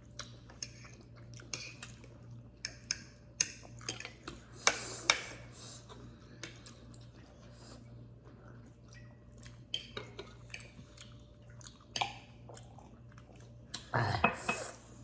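Eating noodles and shrimp from a bowl: utensils clicking and scraping against the dishes, with chewing and mouth noises, and a louder burst of sound near the end.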